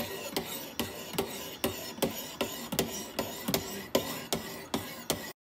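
Handheld sharpener stroked along a curved steel blade clamped in a vise, a scraping stroke about two and a half times a second. The sound cuts off suddenly near the end.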